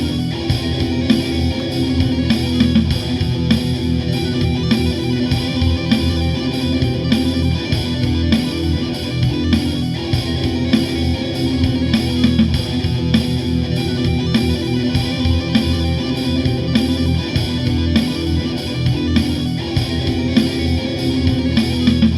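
Background music: an electric-guitar track with a steady drum beat, layered on a looper pedal, playing without a break.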